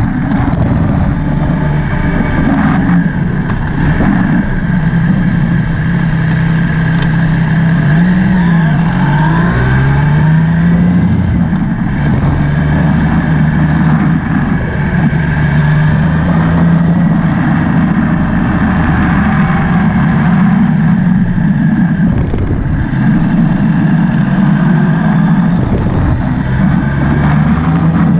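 Motorcycle engine running under way, picked up by a camera mounted on the bike, with steady rushing noise behind it. The engine note drops and climbs again a few times around eight to eleven seconds in.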